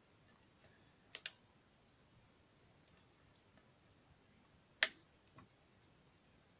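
A few small, sharp clicks from craft items being handled: a quick double click about a second in, a louder single click near the five-second mark, then a couple of faint ticks.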